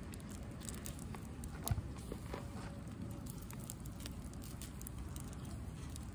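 Grilled shrimp being peeled by hand: small, irregular crackles and clicks of the shell breaking away, with one sharper crack a little under two seconds in, over a low steady rumble.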